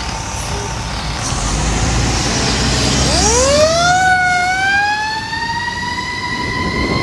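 Fire engine's Federal Q mechanical siren winding up about three seconds in: a low growl that rises quickly, then keeps climbing slowly into a high wail, over the rumble of the truck's engine.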